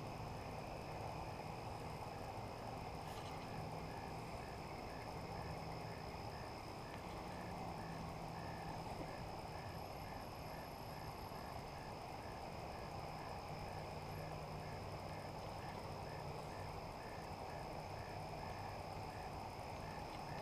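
Evening pond ambience of calling insects: a steady high-pitched trill with a regular chirp about twice a second below it, over a faint low hum that comes and goes.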